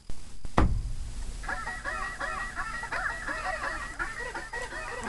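A loud knock about half a second in, as the handheld camera is moved. Then, from about a second and a half in, a dense, fast stream of high, squeaky, honking cartoon voices from a funny anime clip.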